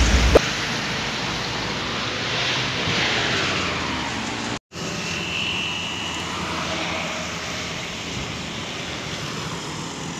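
Road traffic going by: cars and motorcycles passing with a steady rush of tyres and engines that swells as a vehicle goes past. The sound cuts out for a split second about halfway through, then the traffic noise carries on a little quieter.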